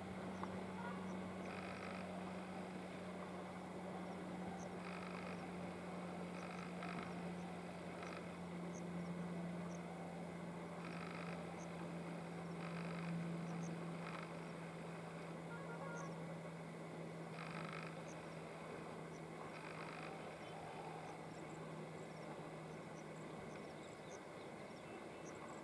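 Distant diesel engine of a ballast cleaning machine running, heard as a steady low hum that sinks slightly in pitch as it draws away. Short animal calls sound every few seconds over it.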